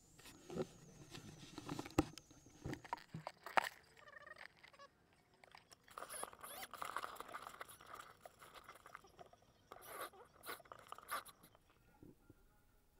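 Handling noise on a small FPV camera's built-in microphone: fingers rubbing, scraping and tapping close to it, making irregular crackles and sharp clicks. The noise comes in two spells with a short lull between them and dies away near the end.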